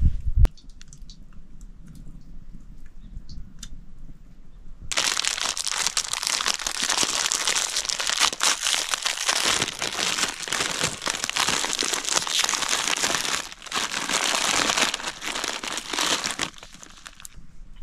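A thump right at the start, then a packet being crinkled and crunched from about five seconds in until shortly before the end, with a brief pause partway through. It fits an instant-noodle packet being handled and its noodles crushed.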